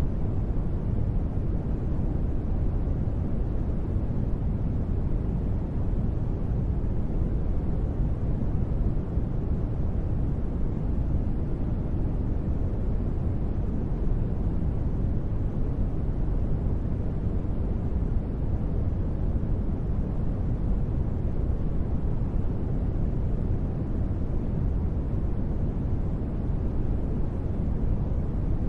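Steady, even noise with most of its weight in the low end, a deep rumble that trails off into a soft hiss higher up: a space-ambience noise bed.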